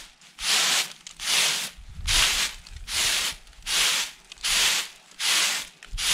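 Threshed paddy rice swishing in a round woven bamboo winnowing tray as it is tossed and shaken to winnow out chaff and straw, one swish a little more than once a second.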